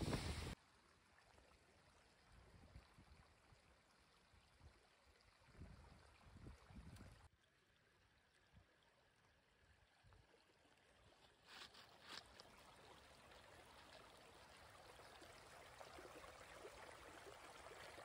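Faint trickle of a shallow, rocky creek, slowly growing louder in the second half. It opens with a half-second of loud wind and rushing water that cuts off abruptly. A few low gusts of wind on the microphone come in the first several seconds.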